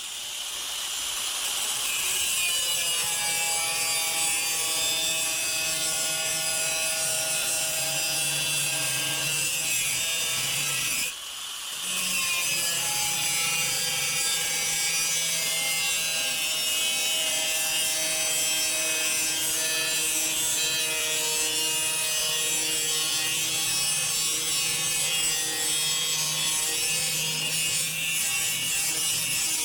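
Angle grinder cutting notches into a sheet-steel cable tray, running steadily under load with a high whine. It stops briefly about eleven seconds in, then starts again.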